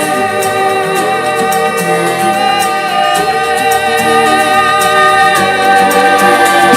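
Instrumental interlude of a sad Hindi song: long held notes, some with a wavering vibrato, over slow backing accompaniment, with no singing.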